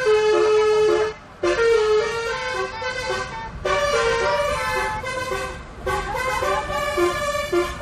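Bus 'telolet' horn: a multi-tone air horn playing a quick melody of stepping, blaring notes, with a short break about a second in and another near the middle.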